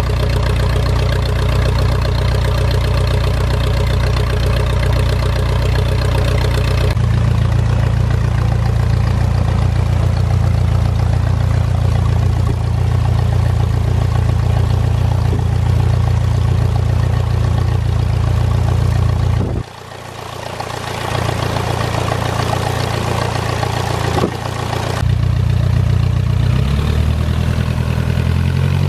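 A de Havilland Tiger Moth's four-cylinder Gipsy Major engine idling steadily with the propeller turning. Its sound drops away briefly about two-thirds of the way through, and near the end the revs rise.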